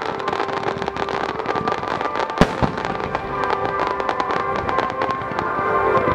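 Underwater fireworks crackling and popping continuously, with one loud bang about two and a half seconds in, over background music.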